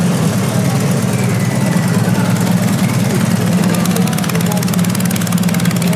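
Custom motorcycle engine idling loudly and steadily, with a fast, even pulsing beat.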